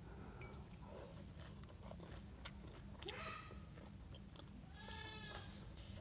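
A goat bleating faintly twice, a short call about three seconds in and a longer wavering one about five seconds in. There are a couple of sharp clicks around the first call.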